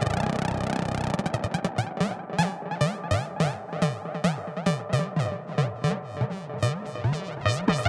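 Novation Bass Station 2 analogue synthesizer with its amp and mod envelopes retriggering in a loop, through a Space Echo style tape-delay effect. A dense tone breaks into a rapid stutter about a second and a half in, then settles into pulses about twice a second whose bass pitch swoops down and back up.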